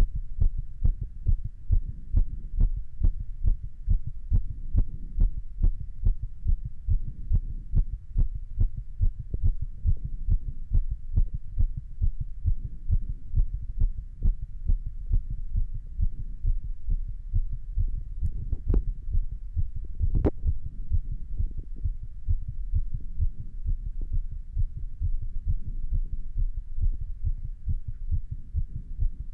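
A person's heartbeat heard close up, beating quickly and regularly in low thumps, raised by a little exercise. Two sharp clicks come through about two-thirds of the way in.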